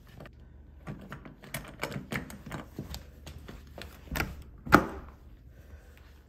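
Irregular light clicks and knocks of a door being opened by its round metal knob, the knob turning and the latch working, with one louder knock about three-quarters of the way in.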